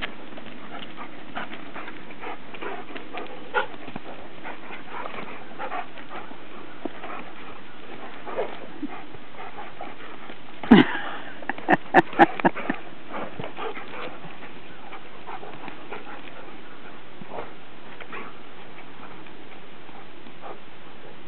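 Two dogs, a Standard Poodle and a Newfoundland, playing roughly: scuffling with faint clicks and knocks of paws and claws, and a quick run of about five short, loud barks halfway through.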